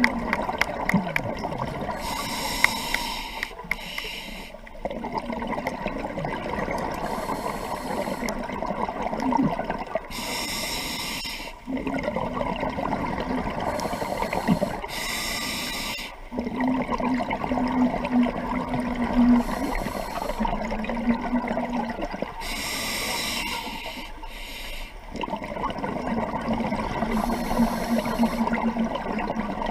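Scuba diver breathing through a regulator underwater, several breaths in a row. Each breath is a short hiss as air is drawn in, then a longer low rumbling, buzzy gurgle of exhaled bubbles.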